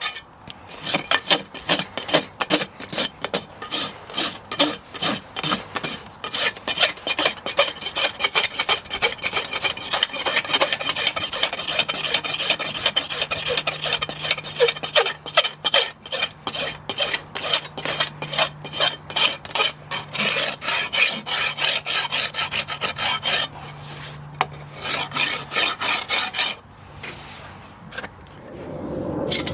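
Farrier's hoof rasp filing a horse's hoof in quick, repeated back-and-forth strokes, about three or four a second, stopping a few seconds before the end.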